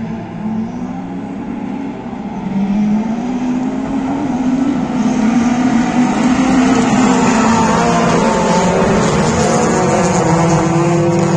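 Several autocross race car engines revving hard, their pitches rising and falling together, getting louder about two to three seconds in and staying loud.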